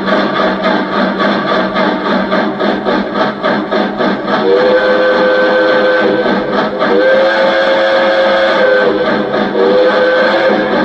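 Lionel O-scale Pennsylvania Railroad M1a model's electronic sound system playing steam chuffing at about five beats a second. A multi-tone steam whistle then sounds long, long, short, and a fourth blast starts at the end, the grade-crossing signal.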